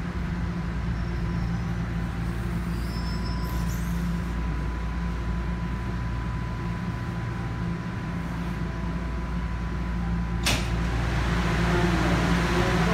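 Interior of a TTC Toronto Rocket subway car standing at a station platform: a steady low hum from the train's equipment, with a thin steady whine. About ten and a half seconds in, a sharp clunk as the sliding doors open, after which the open station sound comes in louder.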